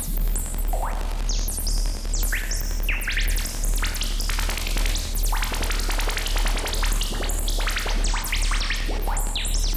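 Vital software synthesizer playing a watery patch: a string of short synth notes whose bright tops sweep up and down under LFO and random filter modulation, over a steady deep low tone.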